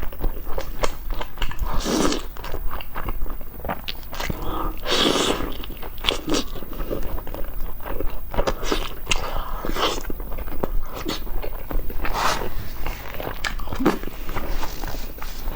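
A person biting and chewing eggs close to the microphone. Many short mouth clicks, with a few louder bites now and then.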